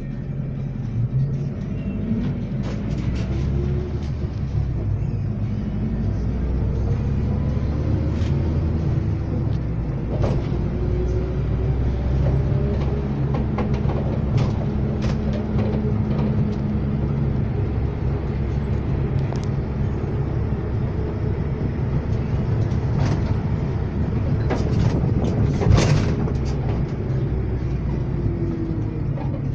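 Iveco Stratos minibus heard from inside the passenger cabin while driving: steady engine and road rumble, with the engine pitch rising and dropping back several times as it pulls through the gears. Occasional sharp knocks cut through, the loudest about 26 seconds in.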